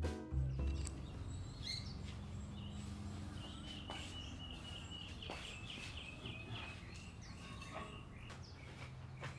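Outdoor ambience with small birds chirping, including a rapid run of repeated high chirps about three seconds in, over a low steady hum.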